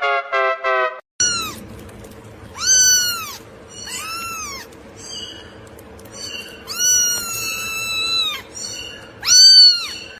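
Cat meowing repeatedly: about five drawn-out meows, rising then falling in pitch, one held longer than the rest late on.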